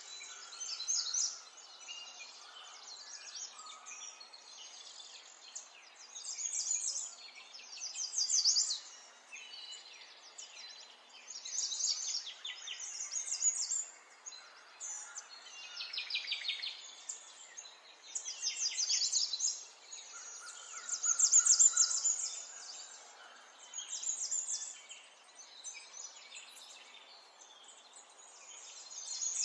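High-pitched chirping calls in short, rapid bouts every few seconds, over a steady hiss; the loudest bout comes a little after the middle.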